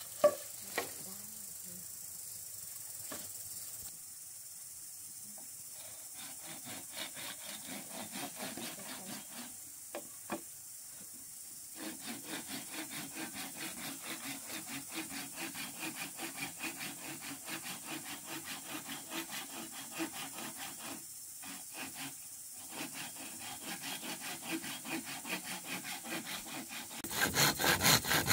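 Hand saw cutting across a green bamboo pole in steady back-and-forth strokes, growing much louder near the end. A few sharp knocks of bamboo poles come just before the sawing starts.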